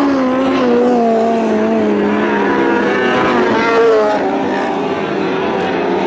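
Several Lightning Sprint race cars running on a dirt oval. Their engine notes overlap, rising and falling as they rev and back off.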